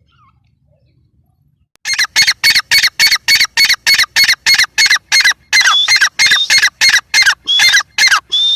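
Grey francolin calling: after about two seconds of quiet, a fast run of short, harsh, repeated notes, about four a second.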